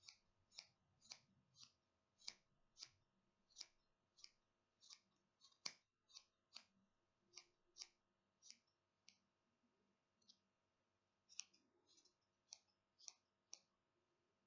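Small scissors snipping through yarn as a pom-pom animal is trimmed down: a steady run of faint, short snips, a little under two a second, with a short pause partway through.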